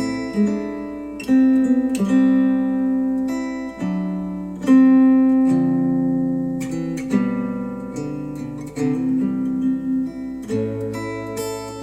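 Instrumental music led by plucked and strummed acoustic guitar, each note or chord struck and then fading, played back through Wharfedale Denton 80th bookshelf speakers driven by a NAD C 388 integrated amplifier.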